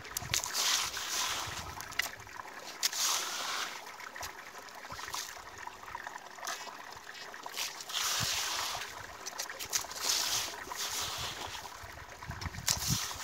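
Flowing river water, a steady rushing hiss that swells every couple of seconds, with a few sharp knocks.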